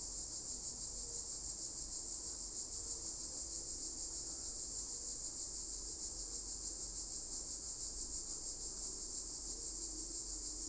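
Steady high-pitched hiss with a fine, rapid pulsing, like crickets chirping, over a faint low hum.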